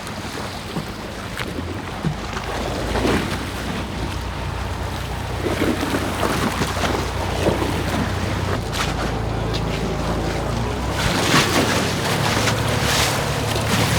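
Steady low engine hum under a rushing wash of wind and water noise, with scattered knocks and clatter that grow busier near the end.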